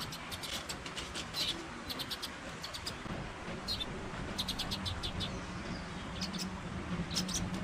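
Small birds chirping, in quick clusters of short high notes repeated every second or so.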